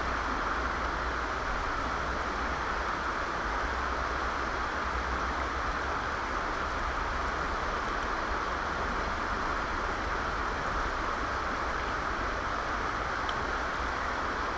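Steady rush of river water running over shallow rapids, with a low rumble underneath and a few faint clicks.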